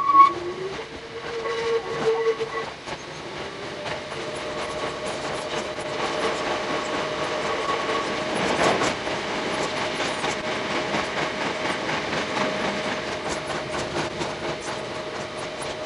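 An electric mountain train's horn sounds briefly at the start. Then the Hakone Tozan Railway 2000 series train runs on, with wheels clicking over the rail joints and a steady motor tone under the rolling noise.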